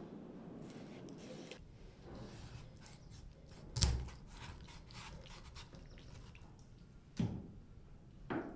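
Close-up kitchen food-prep handling sounds: small clicks and wet squishes, with one heavy thud about four seconds in and two lighter knocks near the end.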